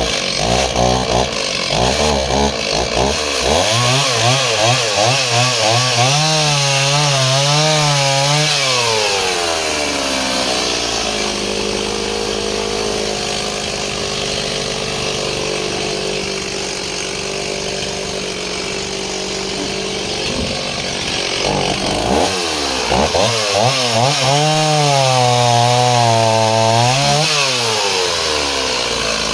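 Small two-stroke chainsaw making two cuts through a log. The engine revs up and its pitch wavers as the chain bogs in the wood, then it drops back to a steadier lower running between cuts before revving into the second cut about two-thirds of the way through.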